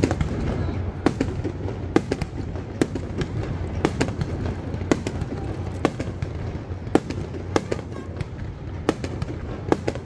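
Aerial firework shells bursting in quick, irregular succession: a dozen or more sharp bangs over a steady low rumble of background noise.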